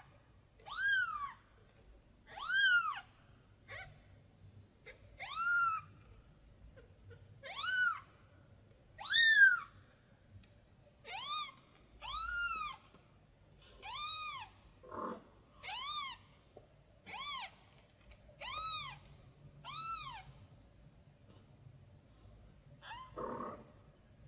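Newborn kitten crying, over a dozen short high-pitched mews that each rise and fall, about one every second or so, then stopping a few seconds before the end. These are the distress calls of a kitten separated from its mother, crying out for her.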